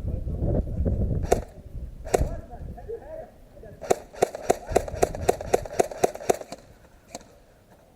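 Airsoft gun shots: two single sharp shots, then a quick string of about a dozen shots at roughly five a second, and one more near the end.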